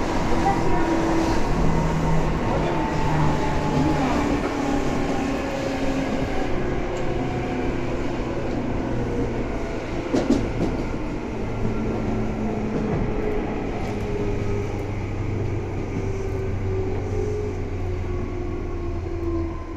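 Tobu 9000 series electric train running, heard from aboard. Its motor tones slide slowly down in pitch as the train slows. A sharp clack comes about ten seconds in.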